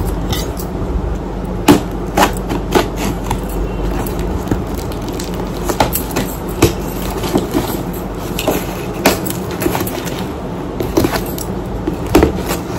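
Cardboard shipping box being opened by hand: irregular knocks, scrapes and crackles of the cardboard flaps and packing tape.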